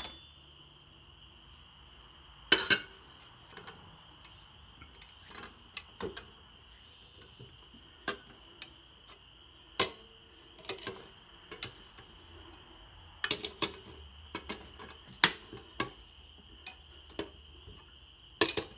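Steel lug wrench turning and tightening lug nuts on a steel wheel: scattered metallic clinks and taps, a dozen or so spread irregularly, with a louder cluster near the end.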